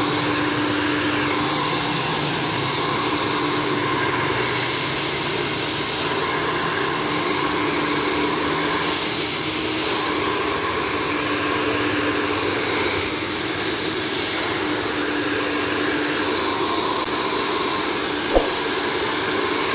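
Handheld hair dryer blowing steadily, a rush of air over a constant hum, coming on at the very start. One brief click about eighteen seconds in.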